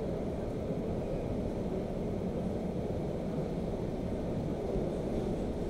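Suburban electric train in motion, heard from inside the carriage: a steady, even rumble of the wheels and running gear.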